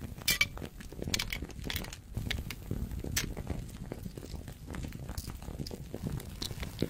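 Pills being pressed out of plastic blister packs: irregular crackling of the plastic with sharp clicks and pops as the foil gives way.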